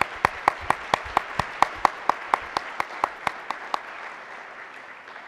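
Audience applauding, with one pair of hands close by clapping sharply about four times a second. The near claps stop about four seconds in and the applause dies away.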